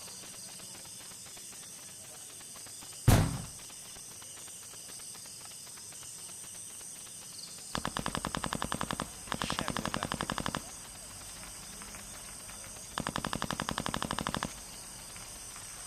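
A single loud bang about three seconds in, followed by three bursts of rapid full-auto airsoft gunfire, each lasting one to one and a half seconds.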